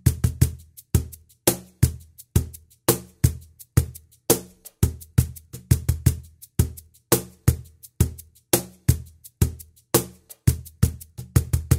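Cajon and acoustic hand percussion playing a baião groove at 85 bpm: deep bass strokes and sharp slaps in a pattern that repeats about every second and a half.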